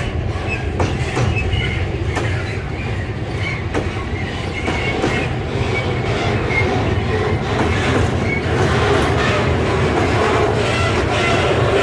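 Freight wagons rolling slowly past on the rails: a steady low rumble with scattered clicks of wheels over rail joints and occasional wheel squeal.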